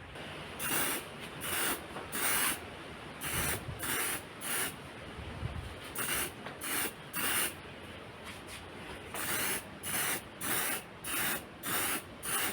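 Aerosol spray paint can sprayed in short bursts: about twenty quick hisses in groups of a few at a time, laying a coat of paint.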